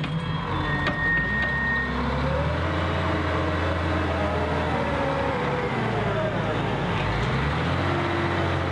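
Liebherr L566 wheel loader's diesel engine running under load, its pitch rising and falling as the machine finishes dumping soil into a dump truck, lifts its bucket and backs away. A short high tone sounds about a second in.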